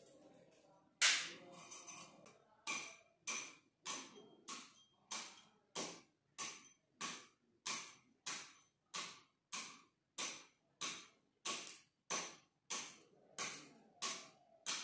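Round-ended steel tamping rod jabbed again and again into crushed-stone aggregate in a small cylindrical measure: a steady series of sharp clicking taps, a little under two a second, the first one the loudest. This is the tamping of one layer of the sample, 25 strokes, for an aggregate impact value test.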